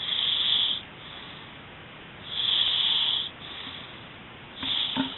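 A sleeping man snoring: three breathy snores, each under a second long, about two seconds apart.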